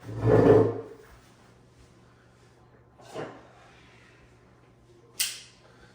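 Handling noises while a knife is fetched: a loud scrape or rustle in the first second, a soft knock about three seconds in, and a short sharp hiss near the end.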